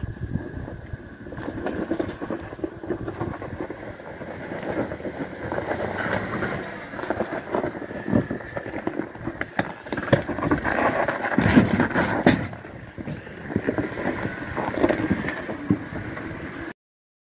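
Jeep Wrangler Rubicon crawling over rocks, its engine running low with scattered knocks and scrapes of tyres and underbody on stone, loudest about ten to twelve seconds in.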